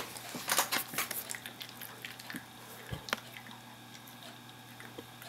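A Shih Tzu chewing a piece of toffee: irregular wet clicks and smacks, thickest in the first second and a half, then scattered.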